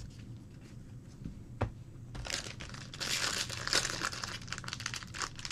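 Foil wrapper of a trading-card pack crinkling as it is handled and opened. The crinkling begins about two seconds in, after a faint click, and carries on to the end.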